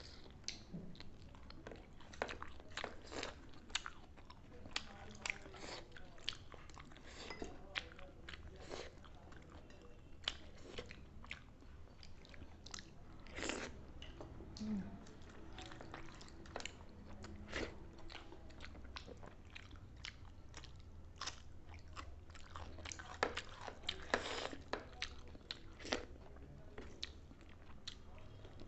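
Close-up mukbang eating sounds: chewing and biting into fried chicken, with many short, irregular crunches and clicks.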